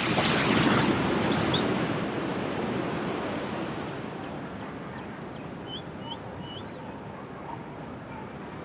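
Sea waves breaking and washing in, a surge of surf at the start that fades away over a few seconds. A bird gives three short chirps about six seconds in.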